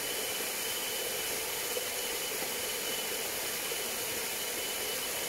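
Steady, even hiss of outdoor background noise with a faint, thin, high steady tone through it.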